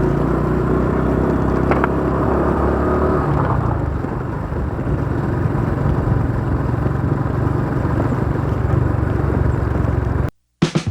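Steady engine drone and road noise of a vehicle cruising on an asphalt road. It cuts off abruptly near the end, and plucked guitar music begins.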